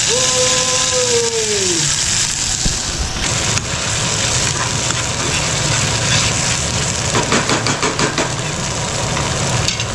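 Ground red chili paste sizzling and spitting loudly after being poured into hot oil, the tempering (tadka) for a pickle. A drawn-out falling tone sounds in the first two seconds, and a spoon scrapes the pan in quick strokes near the end.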